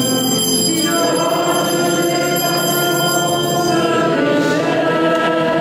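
A church hymn: held chords that change every second or so, with the congregation's singing coming through more strongly about two thirds of the way in.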